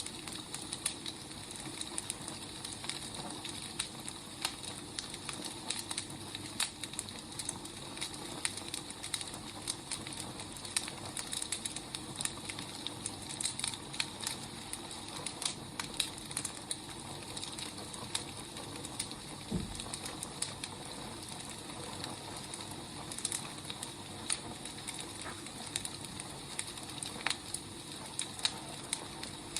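Wood fire burning: a steady hiss with irregular crackles and pops throughout, and a single dull thump about two-thirds of the way through.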